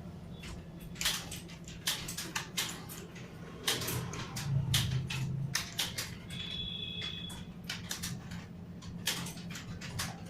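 Several computer keyboards being typed on at once: an irregular clatter of key clicks, some louder than others, over a steady low hum. A brief high tone sounds for under a second about six seconds in.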